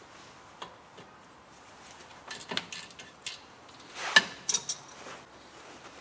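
Scattered metallic clinks and knocks of hand tools and brake parts being handled during brake work, with a cluster of clinks about halfway through and the loudest strikes about four seconds in.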